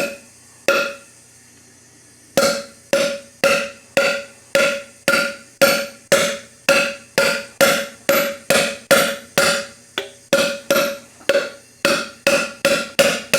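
Five-pound sledge striking a 1/2-inch deep-well socket set on a valve spring retainer: two single ringing metal clinks, then a steady run of them a little over two a second. The retainer and valve keepers are stuck together and have not yet broken loose.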